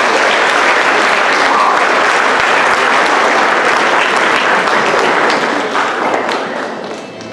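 Audience clapping in a hall, dense and loud, dying down over the last second or so.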